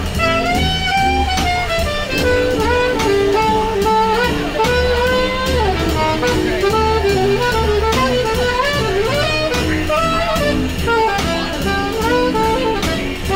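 Jazz music: a sustained melody with vibrato over chords, a pulsing bass line and a steady drum beat.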